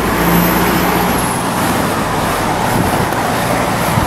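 Road traffic passing close by on a busy roundabout: a steady rush of cars going past, with a brief engine hum in the first second.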